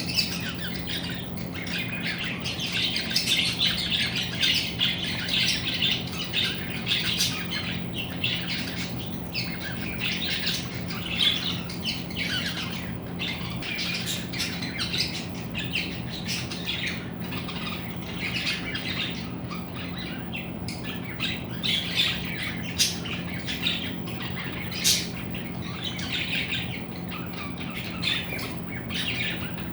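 Many birds squawking and chirping in quick, overlapping short calls, over a steady low hum.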